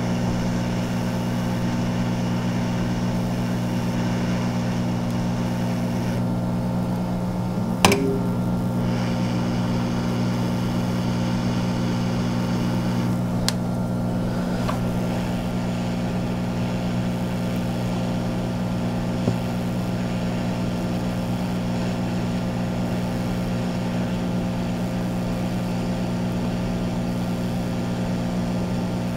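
Aoyue hot air rework station blowing: a steady fan hum under a hiss of hot air as the nozzle reflows solder on an SMD MOSFET's legs. One sharp click about eight seconds in.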